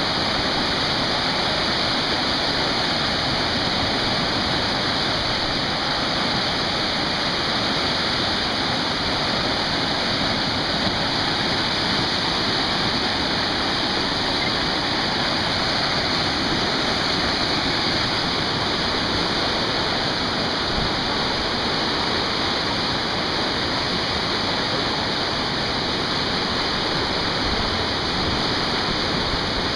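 Whitewater rapids rushing steadily down a concrete artificial slalom channel, an even, unbroken roar of turbulent water.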